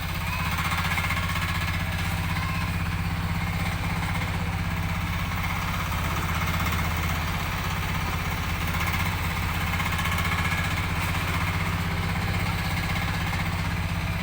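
Engine of a 900 kg mini excavator running steadily, an even low drone that holds the same pitch and level throughout.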